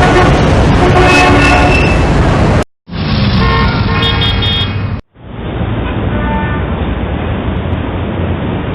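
Street traffic with car horns honking, in three short clips joined by abrupt cuts.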